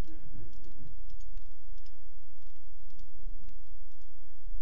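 Computer mouse button clicked repeatedly, sharp clicks about two a second, some in quick pairs, over a steady low electrical hum.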